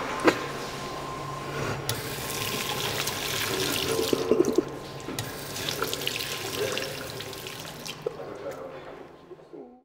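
Water running from a washbasin tap while hands are rubbed and rinsed under it, with a sharp click just after the start; the sound fades out near the end.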